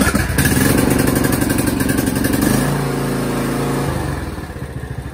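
Craftsman T110 riding mower's engine running just after starting, on choke. Its note changes about two and a half seconds in, and near four seconds it slows and quietens as the throttle lever is moved down from choke.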